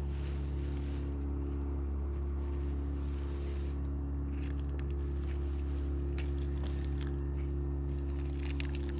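A steady low machine hum, holding several pitches without change. From about halfway through come scattered light clicks and rattles.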